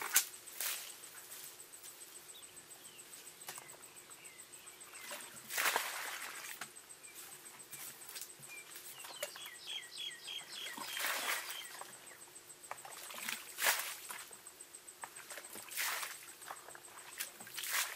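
Water being poured from a plastic bucket and splashing into a shallow muddy ditch, in several separate pours. Short high chirps are heard between the pours.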